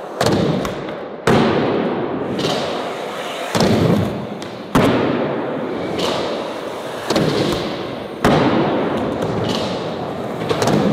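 A series of heavy thuds, about one a second at a steady pace, each one fading away before the next.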